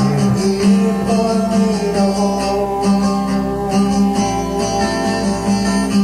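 Music played back from a 1983 cassette recording: plucked and strummed guitar with sustained, slightly gliding notes over a steady rhythm.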